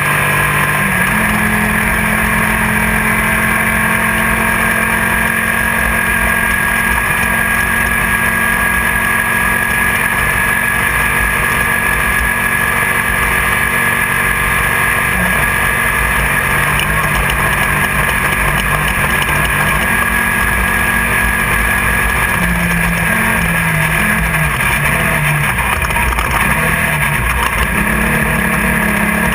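Class 1600 off-road buggy's air-cooled VW flat-four engine running hard during a desert race, heard from inside the car over a constant loud rush of noise. The engine note holds steady for long stretches, then dips and rises a few times in the second half.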